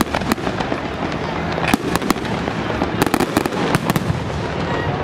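Fireworks display: irregular sharp bangs and crackles, coming thickest in a rapid cluster between about three and four seconds in.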